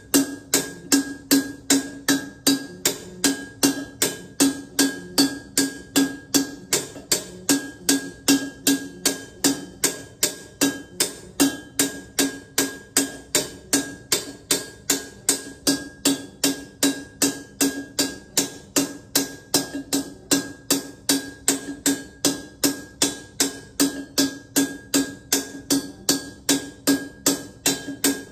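Steel hammer striking a copper vase on a stake in an even run of blows, nearly three a second. Each blow rings briefly at the same metallic pitch, as the vase is hammered into shape from a single copper sheet.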